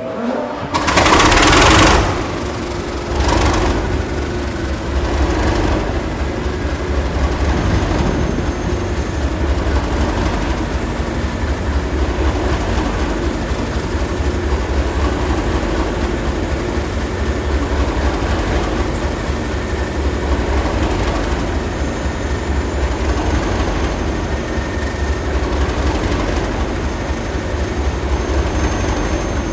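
Class 37 diesel locomotive's English Electric V12 engine firing up, with a loud burst of noise as it catches, then settling into a steady, evenly pulsing idle.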